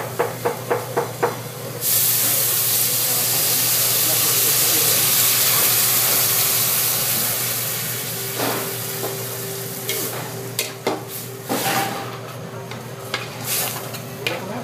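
White vinegar poured into a hot pot of oil-fried chiles, onion and garlic hits with a sudden loud sizzling hiss about two seconds in, which slowly dies down over several seconds. Near the end a metal ladle knocks and scrapes against the pot as it is stirred.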